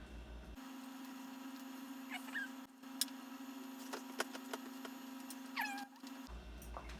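A cat meowing twice, short falling calls about three seconds apart, over a steady low hum with a few sharp clicks. The sound starts and stops abruptly, as an edited-in clip.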